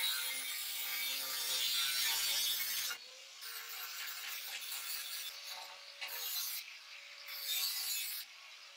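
Angle grinder with a cutting disc cutting through the rusted steel edge of a shovel blade along a marked line, throwing sparks. A loud, hissing grind for about the first three seconds, then lighter, stop-and-start grinding with the motor's steady whine underneath.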